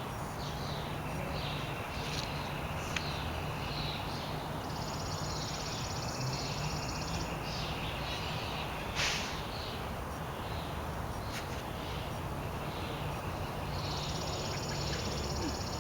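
Songbirds chirping repeatedly, with a high buzzy trill held for a few seconds about five seconds in and again near the end. A short rushing noise about nine seconds in, over a steady low background hum.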